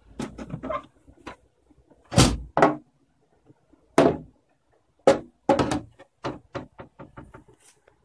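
Plastic carrying case of a UNIS tbm de Luxe portable typewriter being unlatched and its lid lifted off and set down: a few quick latch clicks, then two heavy knocks a little after two seconds in and single knocks later on. Near the end comes a run of lighter knocks that come faster and fade.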